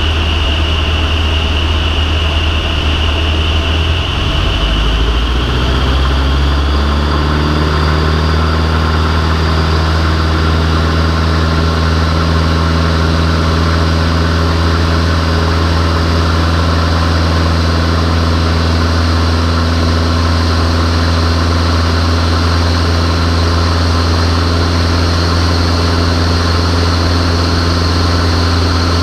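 Van's RV-6A light aircraft's piston engine and propeller droning steadily, heard inside the cockpit. About five seconds in the engine note rises over a couple of seconds, then holds steady.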